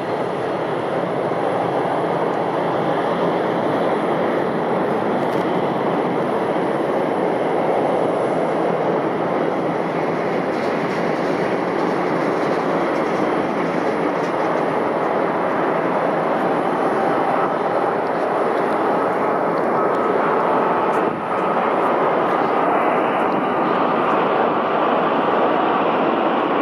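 Jet engines of a Boeing 787-8 Dreamliner on landing approach, a steady rushing roar that holds level, with a brief dip about 21 seconds in.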